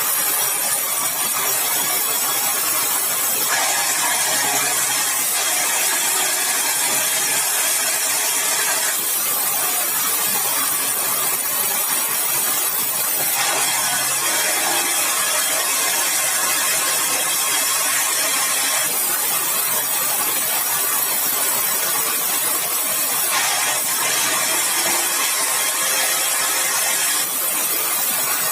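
Sawmill saw cutting hard, dry red balau timber: a steady, high-pitched rushing noise of the blade in the wood, changing abruptly every four to five seconds.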